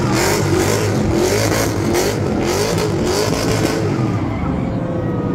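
Drift car's engine revved hard up and down, rising and falling about twice a second as the car slides sideways with its tyres smoking, easing off after about four seconds.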